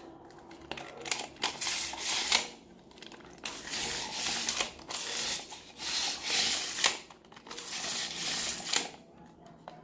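Retractable tape measure's blade being pulled out of its plastic case and run back in several times: a scraping rattle in stretches, with sharp clicks between them. The spring return works again now that the broken pin is replaced.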